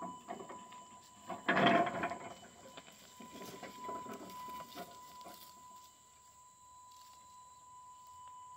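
Electric motors of a homemade radio-controlled ride-style mower running with a steady whine as it drives up a steep slope under load, with a louder rush of noise about a second and a half in.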